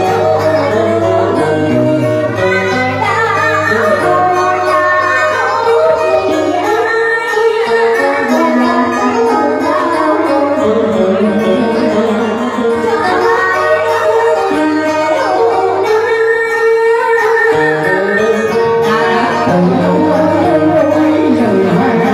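Live Vietnamese duet song: a woman sings a wavering melody into a microphone over a band with keyboard accompaniment.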